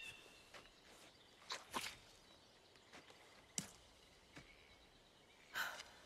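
Near silence: faint outdoor ambience with a few soft clicks and rustles.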